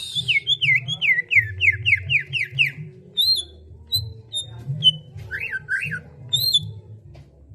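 Cucak ijo (green leafbird) singing: a quick run of about nine downward-slurred whistled notes, roughly four a second, then scattered high single whistles and a double swooping phrase, over a low pulsing backing.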